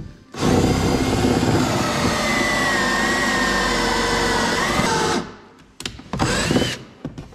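A hand-held electric power tool's motor running steadily for about five seconds, its pitch sagging slightly and then picking up before it stops. It is followed by two short bursts about six seconds in, the second rising in pitch.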